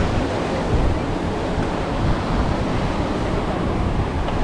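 Steady noise of sea waves and surf, with a strong, fast wind buffeting the microphone in low rumbles.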